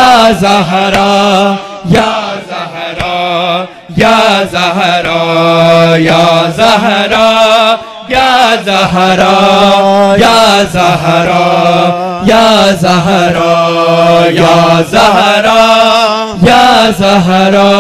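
A group of men chanting a noha, a Shia mourning lament, in unison through microphones, with regular thumps of chest-beating (matam) keeping time.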